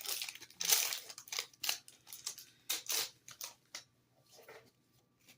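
Foil wrapper of a Yu-Gi-Oh booster pack crinkling and tearing as it is opened by hand, in a quick run of short rustles that die away about four seconds in.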